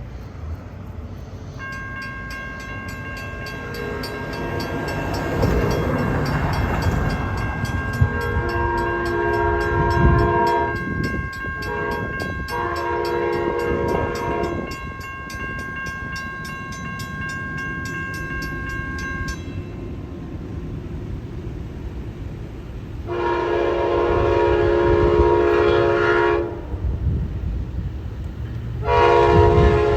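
Amtrak passenger train passing, its locomotive horn sounding four long blasts: two about 8 and 12 seconds in, a longer one around 23 seconds, and another near the end. A crossing warning bell rings steadily through the first two-thirds, over the rumble of the train.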